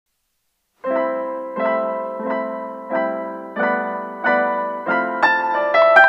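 Background music: piano chords struck at a steady pace of about one and a half a second, each one fading before the next. The music starts just under a second in.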